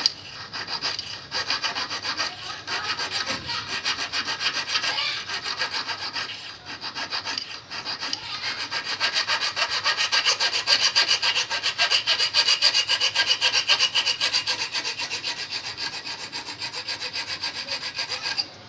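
Small hand file rasping back and forth across a steel fishing hook at its barb and point, sharpening it. Quick, even strokes, strongest in the middle, stop abruptly just before the end.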